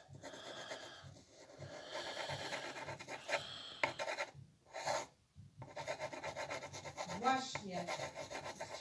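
Pencil scratching across paper in quick shading strokes, stopping briefly twice about halfway through.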